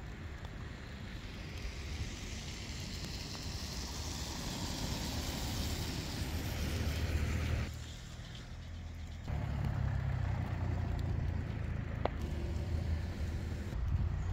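A car passing, its tyre noise swelling over several seconds, over a steady low wind rumble on the microphone. About halfway through, the sound drops suddenly, then the rumble comes back louder.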